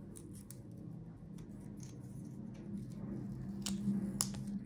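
Light clicks and scrapes of a small screwdriver and fingers working a laptop SSD cover to free the NVMe drive from it. There are a few sharper clicks near the end, over a steady low hum.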